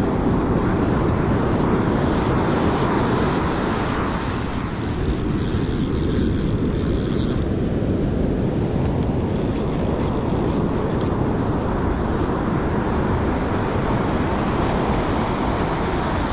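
Wind buffeting the microphone over breaking surf, a steady dense rush. About four seconds in, a high rattling whir lasts some three seconds, and a run of faint light ticks follows around ten seconds in.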